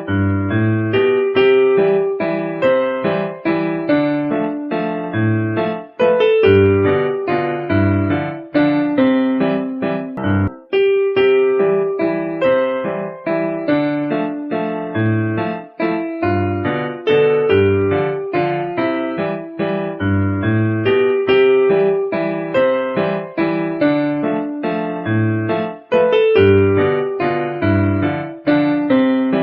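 Background music: a piano or electric piano playing a repeating melody over bass notes, the phrase looping about every five seconds.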